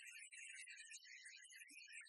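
Faint background music, thin and bright, with no bass notes in this stretch.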